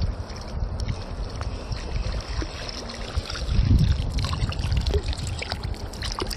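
River water trickling and lapping close by, with low rumbling gusts on the microphone, loudest about three and a half seconds in, and a few light clicks.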